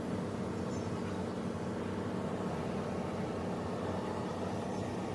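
Ford Expedition engine running steadily, an even low hum with no change in speed. The mechanic traces the vehicle's noise to a broken, leaking pipe.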